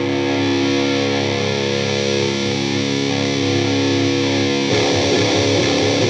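Heavy rock track opening on a heavily distorted electric guitar holding a sustained chord; about three-quarters of the way through, a riff of moving notes starts.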